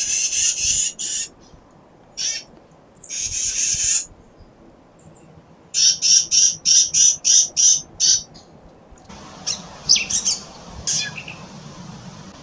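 Black-capped chickadees calling: bursts of buzzy 'dee' notes, with a quick run of about eight notes near the middle. Later, thinner high chips come over a steady background hiss.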